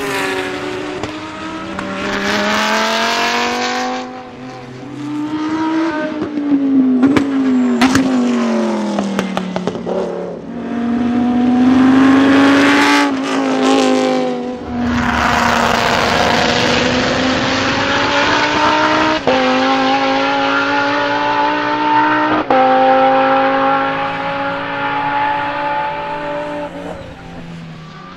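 Lamborghini Huracán Super Trofeo race car's 5.2-litre naturally aspirated V10 under hard driving. The revs climb, then fall through downshifts with sharp pops about seven to eight seconds in, then climb again through several gear changes.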